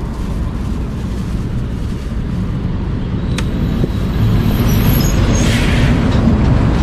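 Steady low rumble of road traffic passing close by, growing louder about four seconds in as a vehicle goes past.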